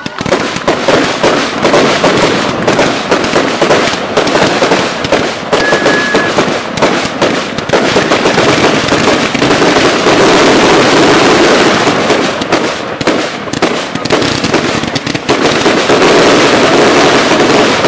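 Consumer firework cakes firing an unbroken barrage: rapid launch thumps, bursts and crackle packed so close that they run together, starting abruptly.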